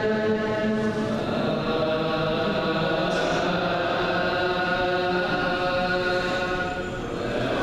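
Ge'ez (Ethiopic) liturgical chant by a group of voices, drawn out in long held notes that step from one pitch to the next.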